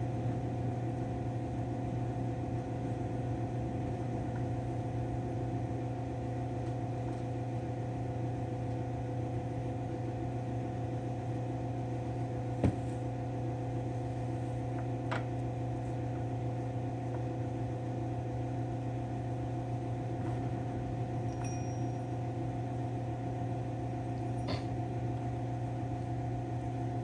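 A steady mechanical hum from a running machine in the room. A few brief metallic clicks sound over it, about halfway through and again near the end, from chainsaw clutch parts being handled.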